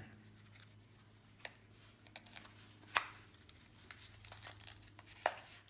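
Small clicks and taps of cardboard and plastic earbud packaging being handled, with a sharp click about three seconds in and another near the end, over a low steady hum.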